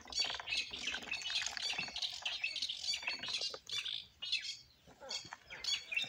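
Muscovy ducklings peeping: a dense run of short, high chirps, with a brief lull about four and a half seconds in.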